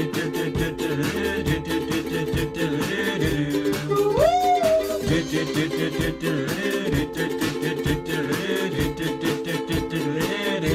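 Intro theme music with a steady beat and sustained chords, with a voice sliding up in pitch about four seconds in.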